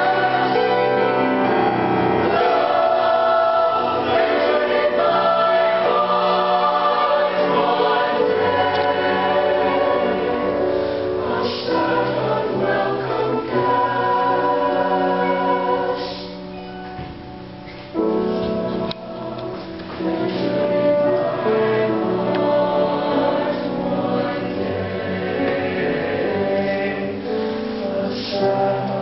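Mixed chamber choir singing a choral piece, many voices sustaining chords. A little past the middle the sound drops to a soft passage for about two seconds, then the full choir comes back in suddenly.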